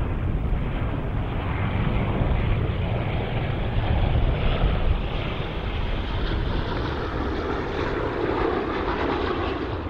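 Jet airliner engines, the Rolls-Royce Trent XWB turbofans of an Airbus A350-900, giving a steady loud rumble.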